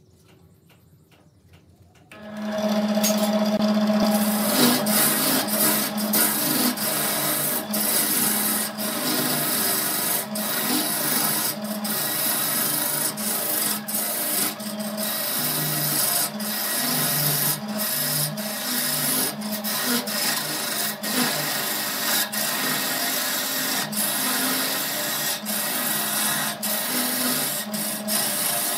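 Wood lathe running with a turning tool cutting into the spinning wood blank: a dense, rough scraping of wood being cut, over the lathe's steady motor hum. It starts suddenly about two seconds in, after a near-quiet moment.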